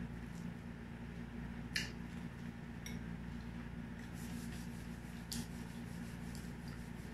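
A person chewing a mouthful of shrimp and leafy salad: soft chewing and mouth sounds with a few short crisp clicks, the clearest about two seconds in. A steady low hum underneath.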